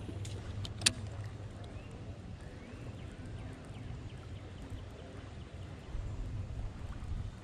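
A baitcasting reel clicks sharply a few times about a second in, as it is handled for a cast, over a low steady rumble of wind and the boat.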